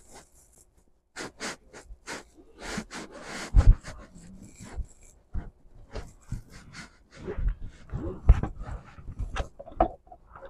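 A driver's seatbelt being pulled out across the body and buckled, with clothing and webbing rustling and panting breaths from the effort. Dull knocks sound about a third of the way in and again later.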